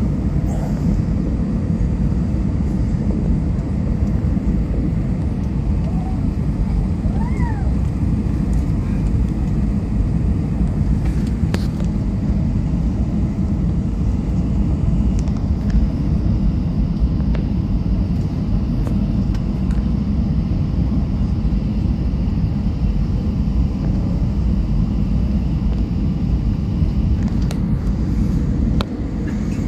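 Airliner cabin noise on descent: a steady, even rush of engine and airflow heard from inside the passenger cabin.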